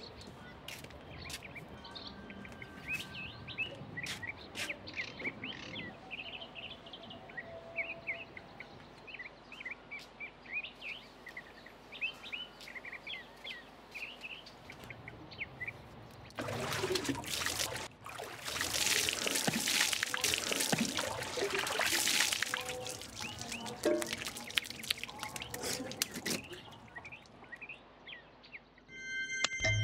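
Small birds chirping for about the first half. Then about ten seconds of water being poured over a person bathing, loud splashing on and off, with the birds still chirping.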